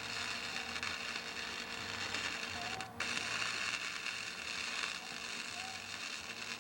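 Electric arc welding on the car body: a steady crackling hiss from the arc that breaks off briefly about three seconds in and then starts again.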